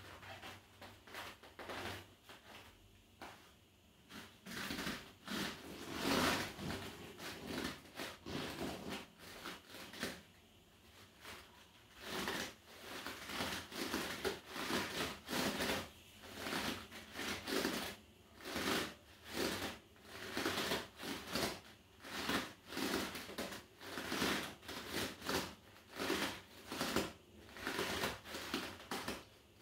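Inflatable rubber balance disc creaking and rustling under bare feet as the weight shifts on it. The bursts come irregularly at first, then settle into a steady rhythm of about one to two a second.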